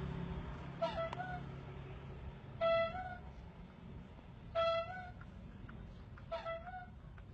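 Rubber bulb horn of a street ice-lolly seller, squeezed four times about every two seconds: each a short honk that bends up slightly at its end. The horn is the seller's call that ice lollies are coming round.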